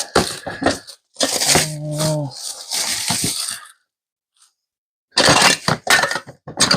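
Rummaging through a pile of tools and gear: hard objects clatter, knock and clink against each other in two long bouts, with a pause of about a second and a half between them.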